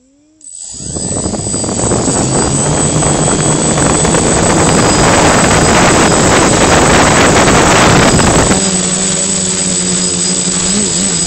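H550 hexacopter's electric motors and propellers spinning up close to the onboard camera, building quickly to a loud rush of propeller wash. About eight and a half seconds in the rush drops away, leaving the motors' whining hum, which wavers up and down in pitch.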